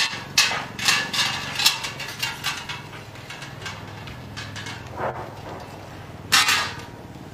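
Dancers making short, breathy, wolf-like vocal sounds: a quick run of huffs in the first two seconds or so, thinning out, then one loud burst about six seconds in, over a steady low hum.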